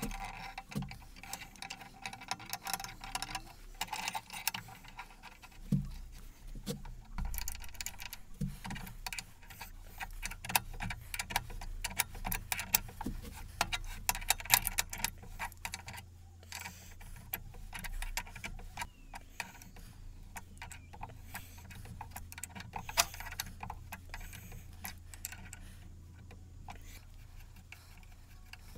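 Irregular small metallic clicks, ticks and clinks of hand assembly on an Atlas 10-inch lathe's cross-slide and cross-feed screw, as parts and hand tools are handled and set against the metal. A steady low hum runs underneath from about seven seconds in.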